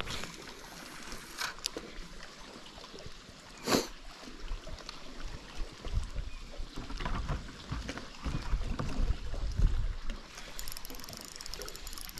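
Spinning rod and reel being cast and fished from a boat. There are a few light taps and one sharp knock about four seconds in, over low rumbling handling noise. Near the end comes the fine, fast ticking of the spinning reel being cranked.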